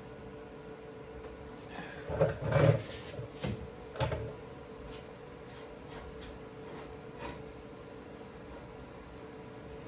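A few short knocks and clunks, the loudest close together about two to three seconds in, then fainter ticks, over a steady hum.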